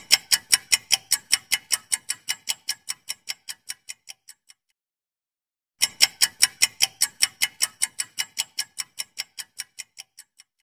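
Quiz countdown-timer ticking sound effect: rapid clock-like ticks, about five a second, in two runs that each start loud and fade away over about four seconds, with a short pause between them.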